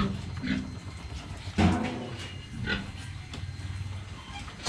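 Pigs grunting: a few short grunts, the loudest about a second and a half in.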